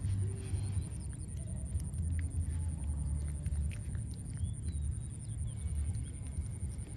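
Low rumble of wind buffeting the microphone, with faint small clicks and smacks of baby macaques chewing banana.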